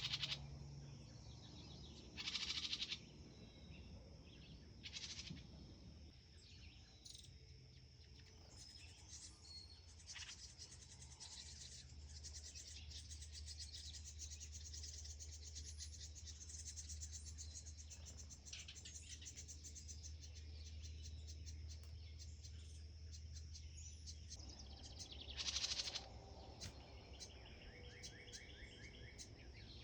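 Carolina wren and nestling chirps and calls, over a steady high insect drone. Short louder bursts of chirping come three times in the first five seconds and once more near the end.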